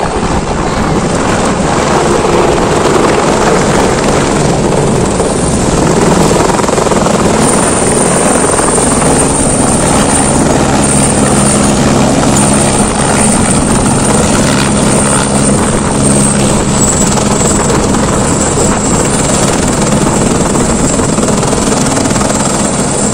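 Shuttle helicopter landing, its rotor and engine noise loud and steady throughout, with a high steady whine that dips slightly in pitch about two-thirds of the way through.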